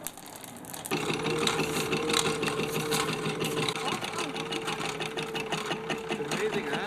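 Small charcoal-fired Stirling engine running fast: a dense mechanical rattle over a steady whine, starting abruptly about a second in.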